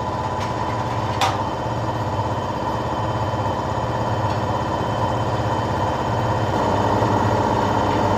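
A steady mechanical hum of an engine or motor running, with a sharp click about a second in.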